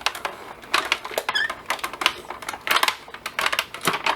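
Quick, irregular light clicks and taps, several a second, from handling the die-cutting setup: card stock, metal cutting dies and plates being shifted and pressed.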